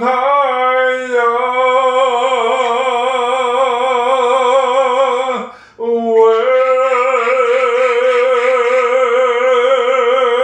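A man singing unaccompanied, holding two long wordless notes with an even vibrato, with a short break for breath about halfway through.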